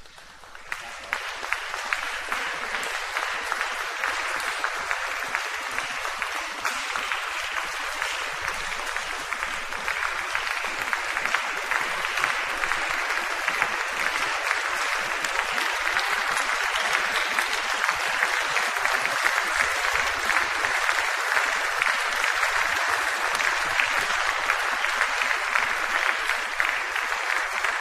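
Audience applauding: dense, steady clapping that starts about half a second in and dies away near the end.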